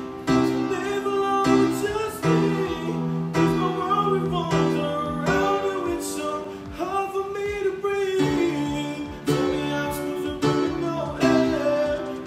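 A man singing a song to strummed acoustic guitar chords, practising it through.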